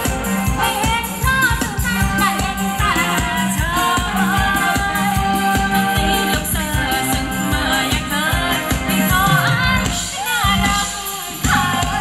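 Thai ramwong band music from a live band: a singer carries the melody over a quick, steady beat. Near the end the music thins out for a moment, then comes back in full.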